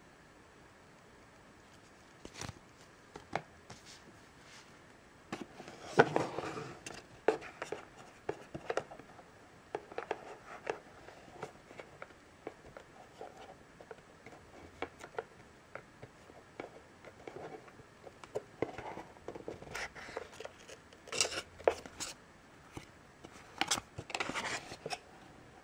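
Paper and card packaging being handled: a printed leaflet and a sheet of stickers rustling and tapping in the hands, in scattered bursts that are loudest about six seconds in and again near the end.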